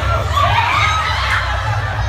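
Dance music with a heavy, steady bass playing through a hall PA, under a hubbub of guests calling out; one voice rises into a shout about half a second in.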